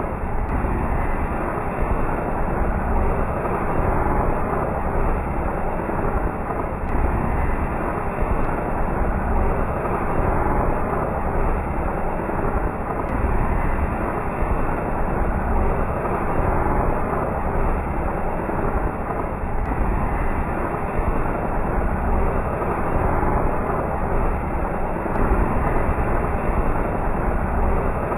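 Anar (flower-pot fountain firework) burning: a steady rushing noise with a strong low rumble, even in level.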